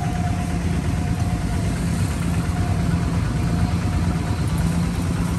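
A motor engine running steadily with a low rumble.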